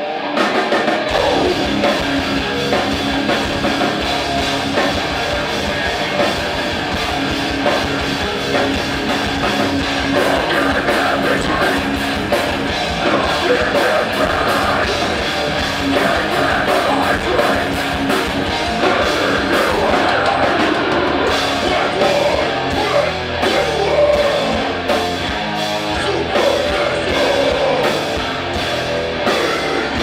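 A punk band playing loud and live: distorted electric guitars, bass and a drum kit, with a steady beat of drum hits, about two a second, in the last third.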